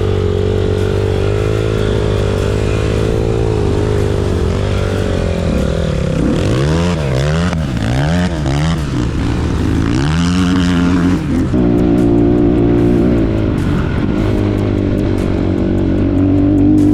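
Enduro motorcycle engine running under way. Its pitch holds steady at first, then rises and falls several times in quick succession around the middle as the throttle is blipped, and settles at higher revs near the end.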